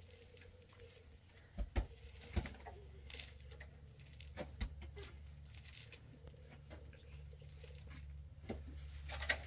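Scattered light knocks and taps at irregular moments, a few close together, over a steady low hum.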